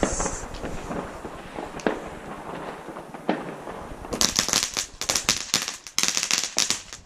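A small ground firework crackling: from about four seconds in, a dense run of rapid sharp cracks goes on for nearly three seconds. Before that, other fireworks pop now and then.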